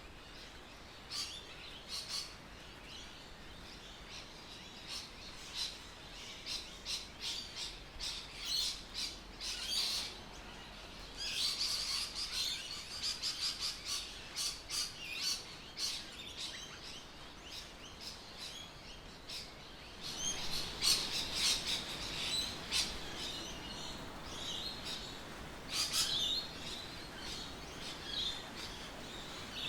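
Birds chirping and calling in many short, high, rapid notes, with denser bursts of song in stretches.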